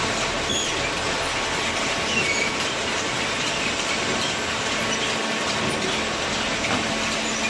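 Hydraulic waste-paper baler running: a steady mechanical noise with a faint hum and a few short high squeaks.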